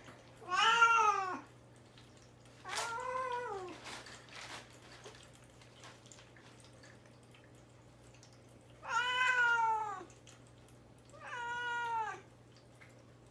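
Caged young cat meowing four times, each meow rising then falling in pitch, with long pauses between: crying to be let out of the cage.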